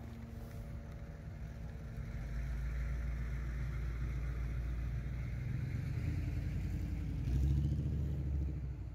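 Electric city tram moving alongside the platform at close range: a low rumble of wheels and drive with a faint whine over it. It builds from about two seconds in, is loudest near the end, then drops away.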